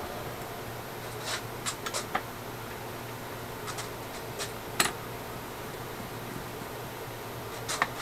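Light clicks and taps of small metal tools and parts being handled at a drill press: a few in a cluster early, one sharper tap about five seconds in, and a few more near the end, over a steady low hum.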